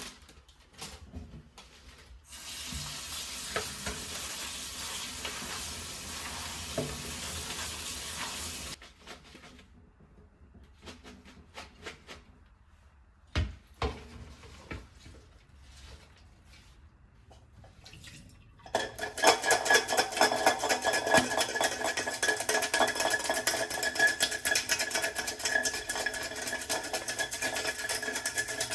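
Kitchen food preparation. A steady hiss runs for several seconds, followed by a few light clinks and one sharp knock. About two-thirds of the way through, a loud, fast, rhythmic clicking of mixing in a bowl begins.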